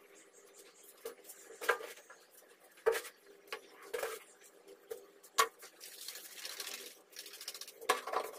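Scattered sharp knocks and clinks, about five over several seconds, with a soft hiss lasting about a second just past the middle: tools and moulding sand being handled while a sand-casting mould is set up.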